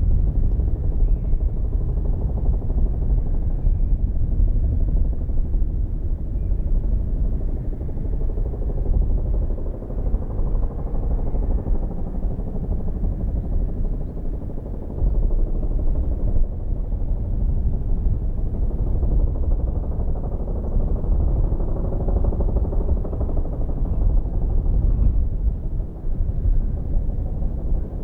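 Bell 212 twin-turbine helicopter flying by, its two-blade main rotor beating in a loud, continuous low rumble that swells a little about three quarters of the way through.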